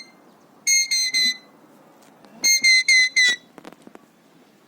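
Alexandrine parakeet giving short, shrill, whistle-like calls, each note at a steady pitch: three quick notes about a second in, then a faster run of about four near the three-second mark.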